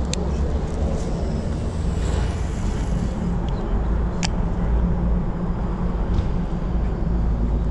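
Wind rumbling on a body-worn camera's microphone at the riverbank, with a few sharp clicks near the start, about a second in and about four seconds in.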